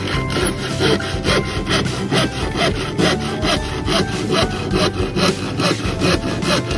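Hand saw cutting through wood in quick, even strokes, about four a second.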